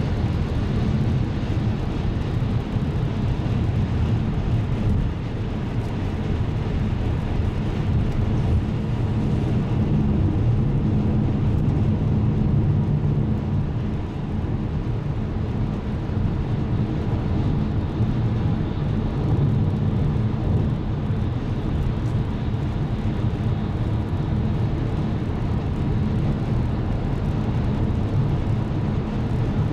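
Steady low road and engine noise inside a car cruising on a motorway, with a faint steady hum under the rumble.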